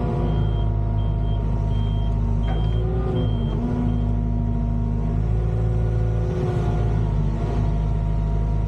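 Volvo EWR150E wheeled excavator running at work, a steady diesel engine hum with tones that shift in pitch about three seconds in. A series of short high beeps from the machine's alarm sounds alongside and stops about four seconds in.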